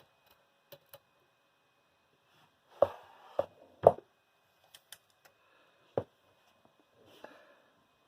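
A few hard knocks and light clicks from something being handled: three louder knocks close together about three to four seconds in, another about six seconds in, and faint clicks between.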